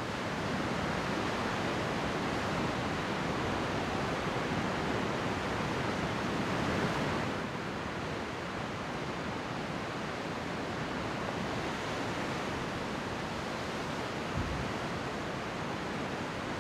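Ocean surf breaking and washing among rocks on a rocky shore, a steady wash of noise that eases a little about seven seconds in.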